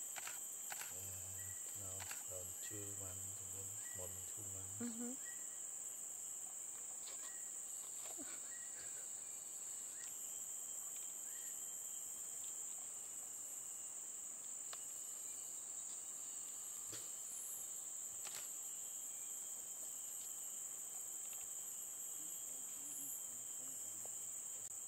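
Tropical rainforest insects keep up a steady, high-pitched drone. Faint human voices are heard during the first few seconds, and there are occasional small clicks and snaps.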